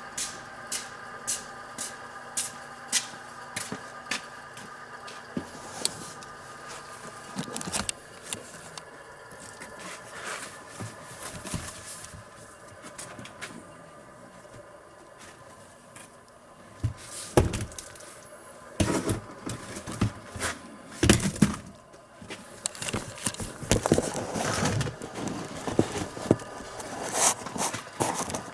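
Immersion-tube burner making an abnormal noise: steady tones with a sharp ticking roughly every half second to second, then, from a little past the middle, a run of irregular loud knocks and clatters.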